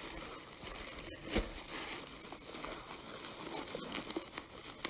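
Bubble wrap and packing material crinkling and rustling as a hand digs a wrapped bath bomb out of a packed box, with many small irregular crackles and one sharper crackle about a second and a half in.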